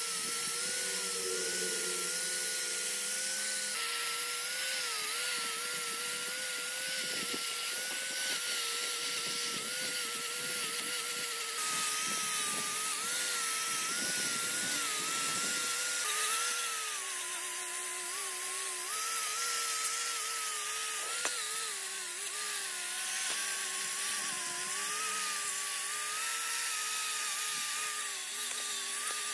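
Small angle grinder running continuously as it scours corroded cast metal housings clean, a scratchy hiss of the abrasive head on the metal over the motor's whine. The whine wavers and sags lower in pitch about halfway through as the grinder is pressed harder into the work.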